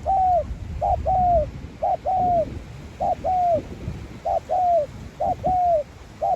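Spotted dove cooing over and over, roughly once a second, each call a short note followed by a longer coo that falls at the end.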